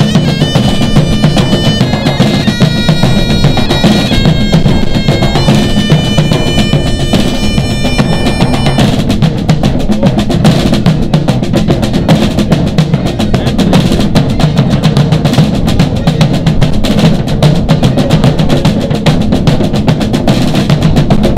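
Highland bagpipes playing a melody over a tribal drum band of large bass drums, congas and snare drum. The pipes stop about nine seconds in, and the drums keep playing on their own with a dense beat.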